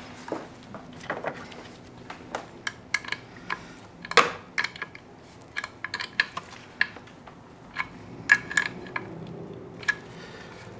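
Irregular sharp metallic clicks and clinks of hand tools and hardware as a bolt and nut are fastened on the engine's NOx sensor bracket. Several of them ring briefly, and the loudest comes about four seconds in.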